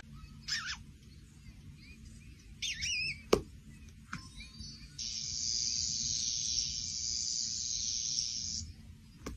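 Electronic chirp and squeak sound effects from a cat-game app on a tablet: a short falling chirp, a warbling trill about three seconds in followed by a sharp tap, then a steady high hiss lasting about three and a half seconds.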